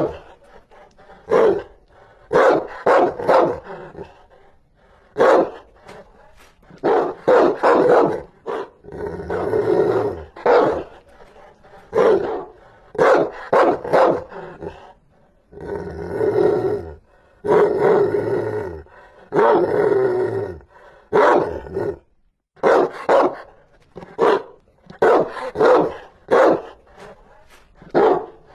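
Rottweiler barking fiercely: short barks, often two or three in quick succession, with some longer, drawn-out barks in the middle.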